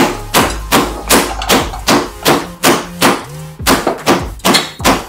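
Meat mallet pounding chicken breasts in a plastic bag on a kitchen countertop: hard repeated blows, about three a second, with a short pause a little past the middle.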